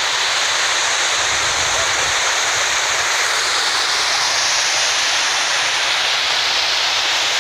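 Muddy floodwater pouring over an eroded earth bank into a gold-mining pit, a loud, steady rush of water: river water breaking in and flooding the workings.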